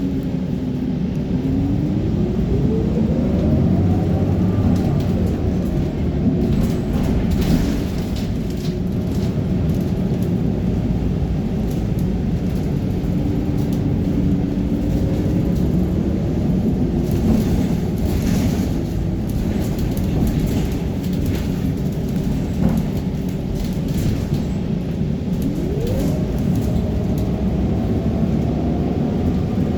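Transit bus running with a steady low rumble, and a drivetrain whine that rises in pitch twice, near the start and near the end.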